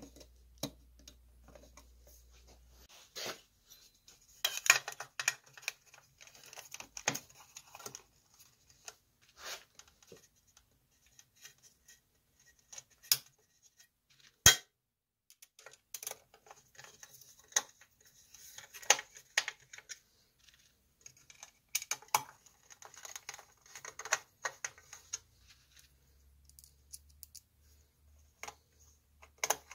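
Irregular clicks, taps and scrapes of pliers and plastic lamp parts being handled and fitted together, with one sharp click about halfway through.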